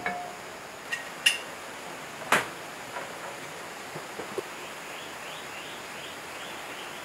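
A few scattered light metal clinks and knocks, the loudest a little over two seconds in, as a multi-groove belt pulley is fitted onto the flywheel of a single-cylinder diesel engine.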